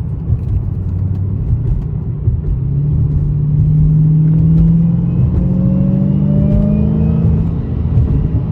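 A 2015 Hellcat's supercharged 6.2-litre HEMI V8 accelerating, a deep rumble with the supercharger's whine, both rising steadily in pitch from about two and a half seconds in. With fresh spark plugs fitted it runs without the multiple-cylinder misfire.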